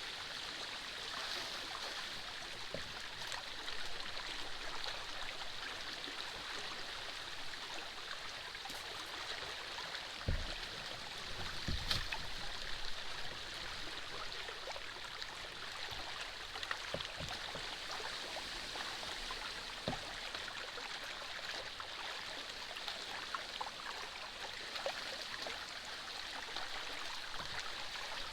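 Steady running water in a drainage canal, with a few low thumps near the middle.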